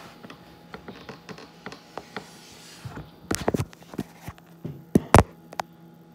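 Slime being mixed with water in a container by hand: irregular wet squelches and clicks, in a busy cluster about three and a half seconds in and loudest around five seconds in.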